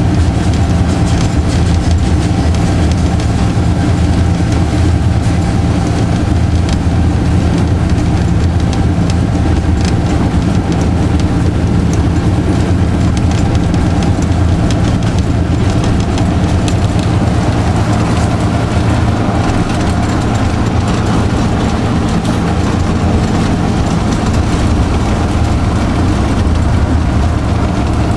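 Diesel engine of a TU7 narrow-gauge locomotive running steadily under way, heard from inside the cab as a loud, even drone.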